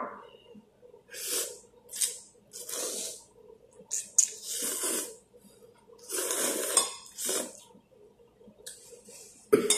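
Two people slurping instant noodles off forks, a string of short noisy slurps roughly once a second. A fork clinks against a ceramic bowl now and then.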